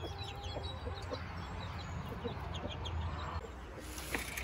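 Young chicks peeping over and over in quick, short, high notes that slide downward, around a mother hen who gives a few low clucks. A brief rush of noise comes near the end.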